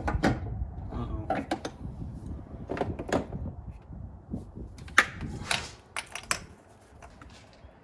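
Metal hand tools clinking and knocking in an engine bay while spark plugs are being removed, in irregular clatters with a sharp knock about five seconds in. The clatter dies away near the end.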